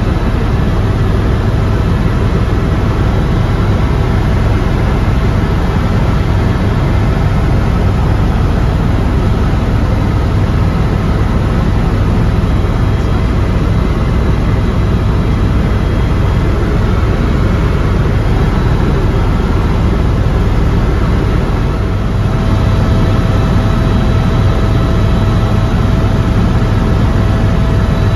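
Helicopter engine and rotor noise heard from inside the cabin in flight: a loud, steady low rumble with a steady whine over it.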